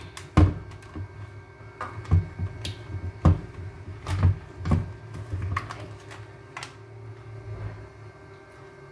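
Kitchen items being handled and set down on a counter: irregular light clicks and knocks, mostly in the first five seconds, over a steady low hum.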